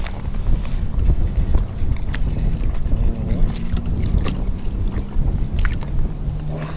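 Wind buffeting the microphone and small waves lapping against the hull of an inflatable boat, with a few light knocks and taps.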